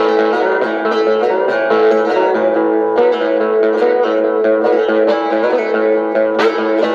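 Guitar picked in a twangy country-blues style, single notes plucked over strings that ring on. A hard pluck comes near the end.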